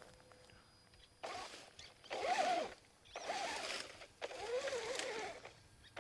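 Traxxas Rustler RC truck's electric motor revved in four short bursts, its whine rising and falling, as the truck is driven back and forth while stuck in brush and cannot free itself.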